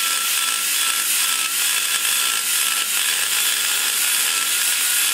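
Die grinder running steadily with a large carbide burr cutting into the aluminium of a big-block Chevy cylinder head's exhaust port, rolling down the boss around the valve guide: a steady high whine over a hissing cut.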